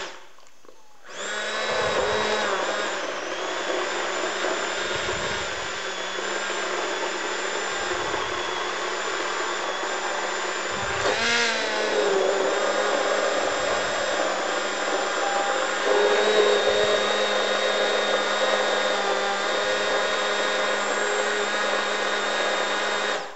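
Handheld immersion blender (stick mixer) running steadily, pureeing thick squash soup in an aluminium saucepan. The motor whine starts about a second in and cuts off near the end.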